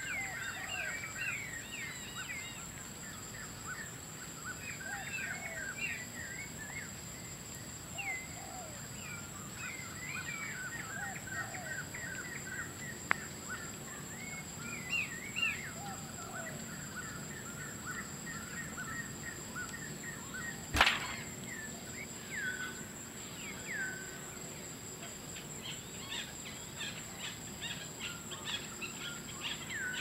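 Outdoor ambience of birds chirping repeatedly in short bursts over a steady high-pitched insect whine, with one sharp knock about two-thirds of the way through.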